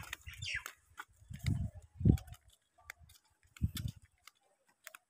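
Footsteps on dry ground and leaf litter: a few soft thuds with scattered crackles and clicks of dry leaves and twigs.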